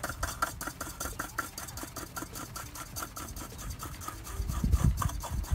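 New spin-on oil filter being threaded onto its housing by hand: a quick, even run of scraping, rubbing ticks. A louder low thump comes about four and a half seconds in.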